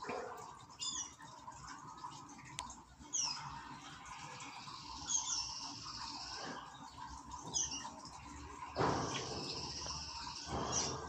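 Canaries giving short, high, falling chirps, single notes a few seconds apart. About nine seconds in there is a brief rush of noise.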